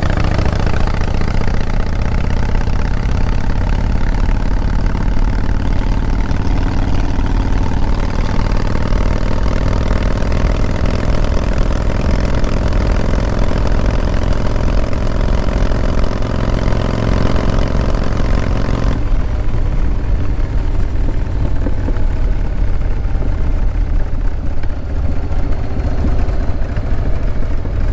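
1997 Harley-Davidson Fat Boy's Evolution V-twin engine running under way, mixed with steady wind rush. The engine pitch climbs slowly through the middle as the bike picks up speed, then eases about two-thirds of the way through.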